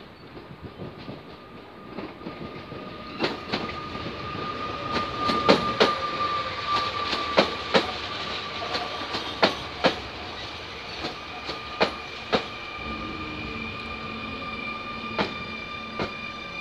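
Pesa Elf 22WEd electric multiple unit passing at speed, its wheels clicking over rail joints, loudest as it goes by about five to twelve seconds in, over a steady high electric whine from the traction equipment.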